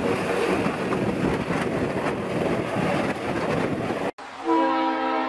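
Coastguard search-and-rescue helicopter lifting off close by, a dense steady rotor and turbine noise with wind on the microphone. It cuts off suddenly about four seconds in, and a steady, loud train horn takes over.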